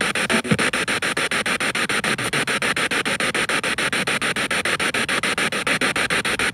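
Spirit box radio sweeping through stations, played through a portable speaker. Steady static is chopped into short bursts about eight times a second, with a brief voice-like fragment about half a second in.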